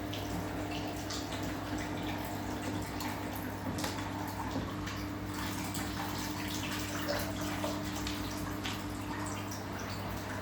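Samsung washing machine with water running and splashing inside the drum, small drips and splashes over a steady low hum.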